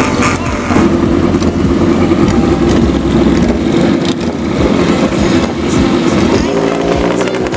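Old Japanese motorcycles, among them a Suzuki GT380 two-stroke triple, running close by at a steady idle with a rough, dense engine note.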